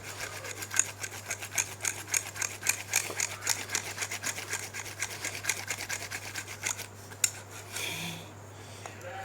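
Rapid back-and-forth strokes of a hand tool scraping and cutting away excess plastic from the broken broom piece, several strokes a second, stopping about seven seconds in.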